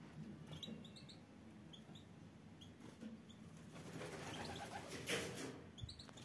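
European goldfinches giving short, high chirping calls scattered through, with a brief louder rustle about five seconds in.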